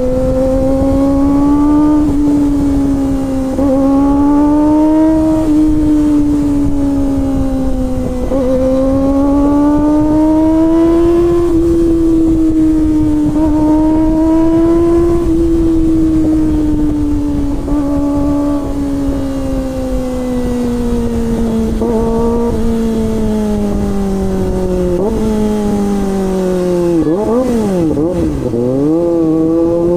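Kawasaki ZX-25R's 250 cc inline-four engine running at high revs, its pitch rising and falling with the throttle and dropping sharply a few times. Near the end the revs fall low and waver, then climb again.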